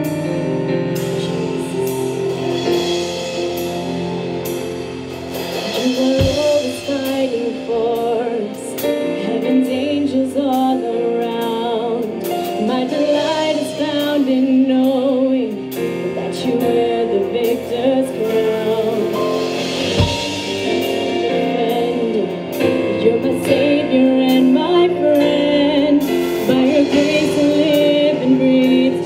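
Live praise and worship music: women singing into microphones over keyboard and acoustic guitar. It opens on held keyboard chords, and the voices come in about five seconds in.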